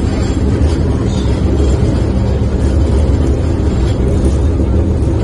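Steady low rumble and hum of a moving city bus heard from inside the passenger cabin.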